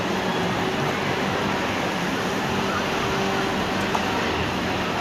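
Steady rushing splash of a dancing fountain's water jets falling into the pool, with voices in the background and a single sharp click about four seconds in.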